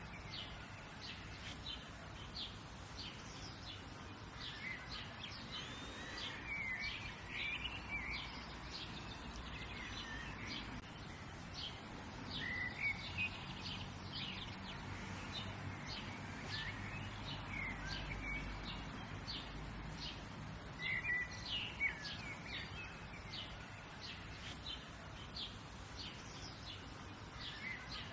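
Outdoor ambience of birds chirping and singing: many short chirps and trills from several birds, scattered throughout over a steady background hiss.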